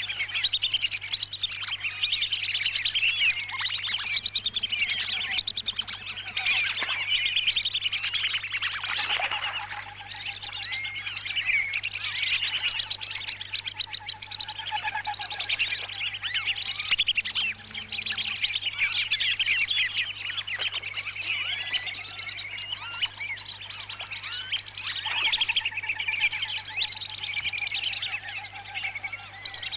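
A dense, unbroken chorus of many wandering whistling ducks calling with short, high twittering whistles: a lure-call recording for attracting the ducks. A faint steady hum sits underneath.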